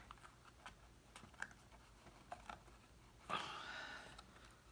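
Faint scattered clicks and small taps of cardstock pieces being handled, with a short rustle a little past three seconds in.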